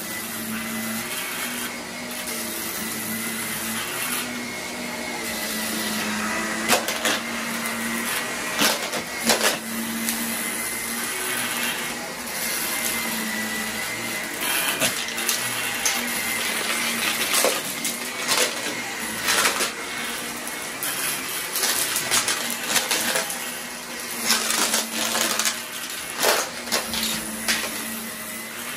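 Bagless upright vacuum cleaner running over carpet: a steady motor hum with a thin high whine, broken by scattered crunchy clicks and crackles as small debris is sucked up into it.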